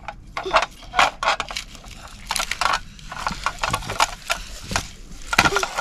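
Plastic toy grader pushed by hand over bark mulch, dirt and twigs: its wheels crunch and scrape in an irregular run of crackles.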